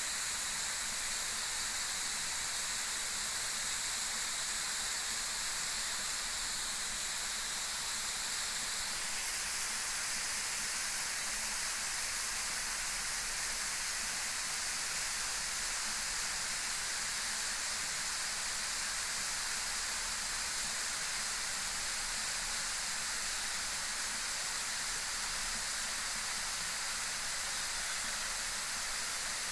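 Steady rushing hiss of water from a waterfall, with no let-up; the high part of the hiss shifts slightly about nine seconds in.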